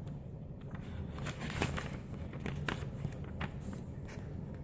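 Pages of a paper instruction booklet being flipped and handled: a scattering of soft rustles and clicks over a steady low hum.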